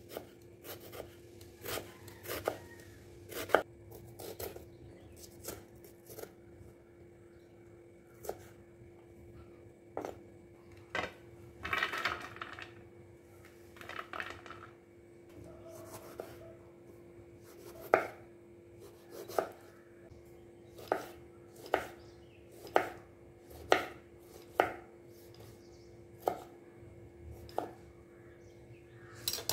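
A kitchen knife chopping small red onions, then tomatoes, on a round wooden chopping board: irregular sharp knocks of the blade against the wood, about one every half second to a second.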